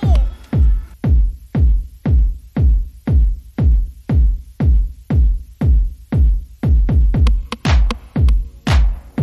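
Background electronic dance music with a steady kick-drum beat, about two beats a second, and sharper hits coming in near the end.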